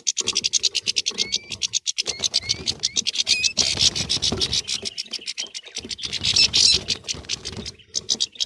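European goldfinches chattering and squabbling: a dense, rapid run of high chips with short rising twitters mixed in, broken by brief pauses.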